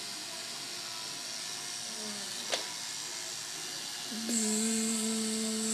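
Corded electric hair clippers switched on about four seconds in and buzzing steadily with one even pitch for about a second and a half, held against gathered long hair to start a head shave. Before that, a steady background hiss and a single sharp click about halfway through.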